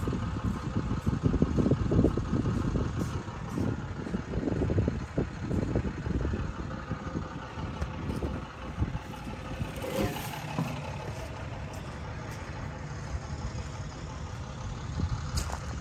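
Caterpillar D3B LGP crawler dozer's diesel engine idling steadily, with irregular low buffeting on the microphone over the first several seconds.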